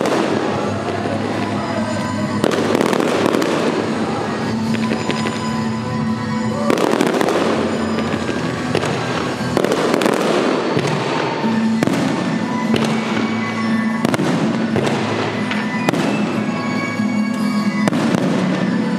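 Aerial firework shells bursting overhead in a series every couple of seconds, each burst trailing off in crackles, with music playing along.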